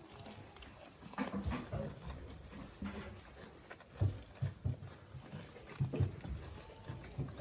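Goats moving about at close range: scattered low thuds and short rustles, with a faint short bleat near the end.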